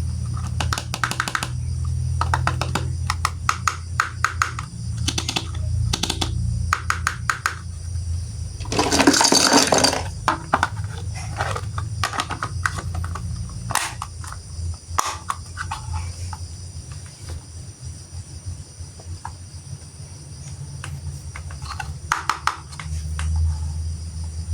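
Plastic toy train parts clicking and rattling as they are handled and fitted together, over a steady low hum. A short burst of rustling comes about nine seconds in.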